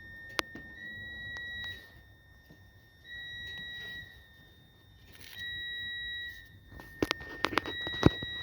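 A repeating electronic warning beep, one steady high tone about a second long, sounding roughly every two and a half seconds. A handful of sharp clicks and knocks come near the end.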